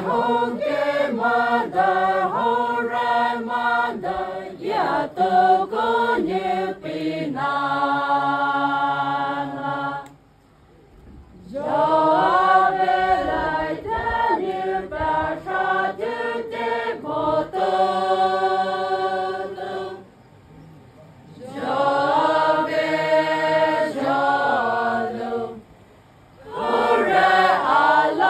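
Voices chanting in long phrases, each ending on a long held note, with three short breaks between phrases.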